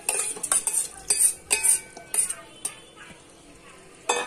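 Metal spoon stirring in a metal cooking pot of wet masala and meat, scraping and knocking against the pot's sides with short ringing clinks. The knocks come in quick irregular strokes, stop for about a second, then one loud knock comes near the end.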